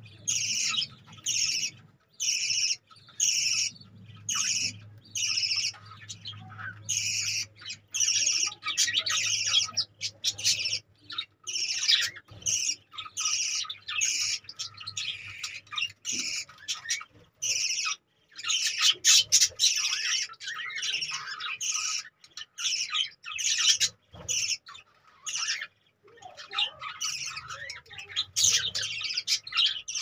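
A flock of budgerigars chattering, a dense run of short high chirps and squawks in quick succession, busiest about two-thirds of the way through.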